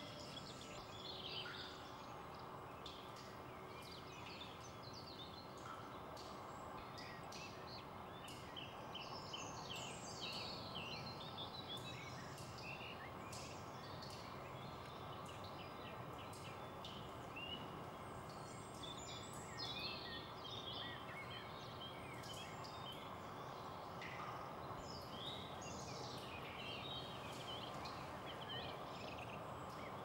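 Faint outdoor ambience of small garden birds chirping in short, scattered phrases over a steady background hiss.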